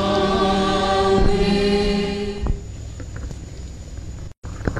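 A large choir singing and holding a sustained chord that ends about halfway through. After that there is low room noise, and the sound cuts out briefly near the end.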